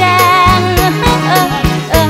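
Thai luk thung song playing: a wavering melody line over a steady bass and a drum beat of about three hits a second.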